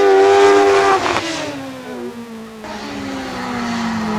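Single-seater hillclimb racing car passing close under power, its engine note held high, then falling steadily in pitch and getting quieter as it goes away and slows for the next bend.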